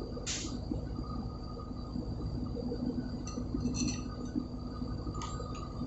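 Sharp metallic clinks of hand tools and bolts against the steel cover of a main engine starting air valve as it is bolted back together: one just after the start, a quick cluster near the middle and two more near the end. A steady machinery hum runs underneath.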